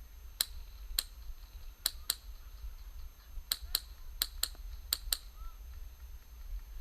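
Airsoft guns firing single shots: about ten sharp clicks over five seconds, several in quick pairs.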